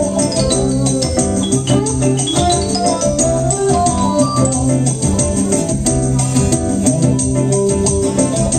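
Live band music led by an electronic organ-toned keyboard, with electric and acoustic guitars over a steady beat. About two seconds in, a high tone slides down and then back up.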